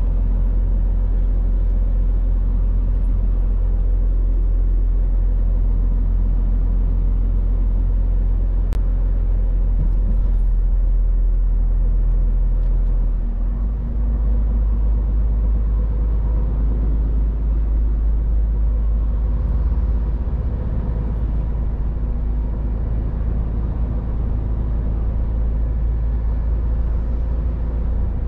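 Scania R500 truck cruising on a motorway, heard from inside the cab: a steady low rumble of engine and tyre noise.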